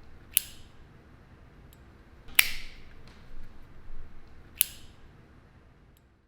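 Three sharp clicks, roughly two seconds apart, each with a short ringing tail, over a faint low hum.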